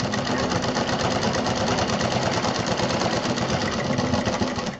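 Domestic sewing machine running steadily, stitching through thick quilted fabric layers with a rapid, even clatter that stops abruptly near the end.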